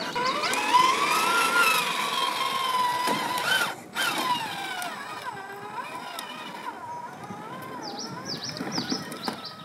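Whine of a 1/8-scale Traction Hobby KM5 RC crawler's electric drive motor and gears, rising and falling in pitch with the throttle as it climbs rock. Near the end a series of short high falling chirps sounds over it.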